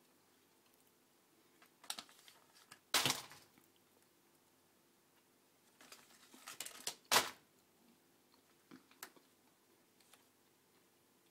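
A cat rummaging in a kitchen cupboard: scattered knocks, clicks and rustling of packaging. The loudest sounds come about three seconds in and again about seven seconds in.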